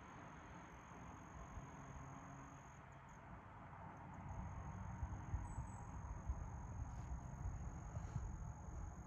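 Faint, steady high-pitched insect trill, like crickets, running unbroken, over a low outdoor rumble that grows a little louder about halfway through.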